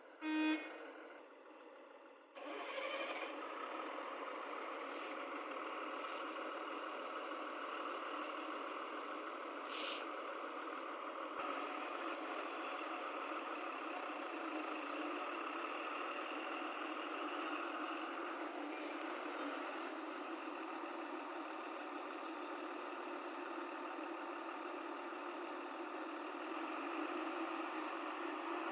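Heavy machinery engine running steadily, starting suddenly a couple of seconds in. A brief, loud pitched blip comes right at the start.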